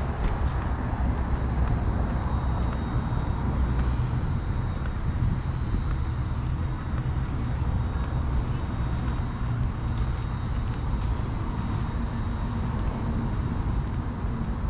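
Steady rumble of road traffic, with a faint steady high whine and scattered small ticks over it.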